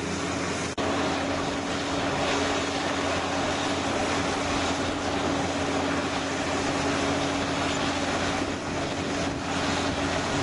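Crawler bulldozers' diesel engines running steadily under load as the blades push soil, a constant engine drone with a steady hum over it.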